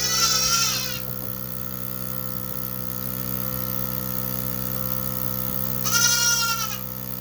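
Goat bleating twice, a short wavering call at the start and another about six seconds in, over the steady hum of the running automatic goat milker's pump.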